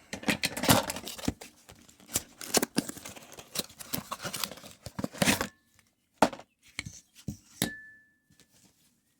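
Handling noise: rapid rustling, scraping and clicking for about five seconds, then a few separate sharp clicks, one followed by a short high beep.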